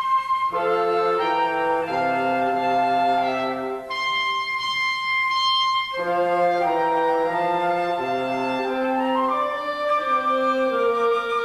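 Wind ensemble music: slow, sustained chords, each held for a second or two, with a single high note held alone for about two seconds near the middle.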